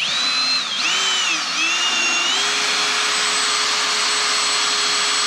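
Power drill spinning a hole saw, cutting a hole in the bottom of a car door. The motor whine rises and dips for the first two seconds or so, then holds at a steady high speed.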